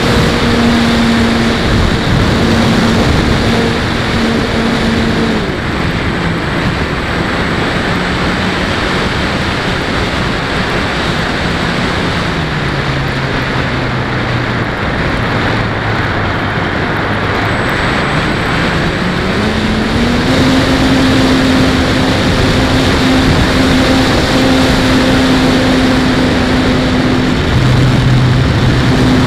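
ParkZone T-28 park flyer's electric motor and propeller in flight, heard from the onboard camera under loud wind rush. The motor's hum steps down in pitch through the first half as the throttle is eased back, climbs again about two-thirds of the way in, and dips briefly near the end.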